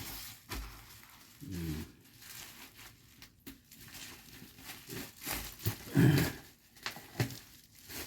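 Plastic parcel packaging crinkling and tearing as it is handled and opened, with scattered clicks and rustles. A few short voice-like sounds come in about two seconds in and again near six seconds.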